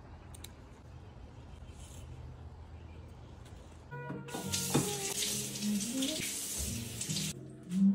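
Kitchen faucet running into the sink as a lemon and fresh herbs are rinsed under it. The water starts about halfway through and shuts off near the end.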